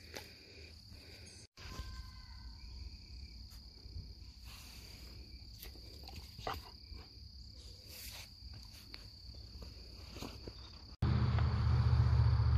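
Insects droning steadily in a high, even tone, with faint scattered clicks. After a cut about eleven seconds in, a louder steady low hum takes over.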